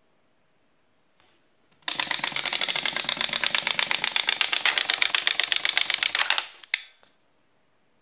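A rapid, even train of mechanical clicks, about ten or more a second, lasting about four and a half seconds and ending with one louder single click.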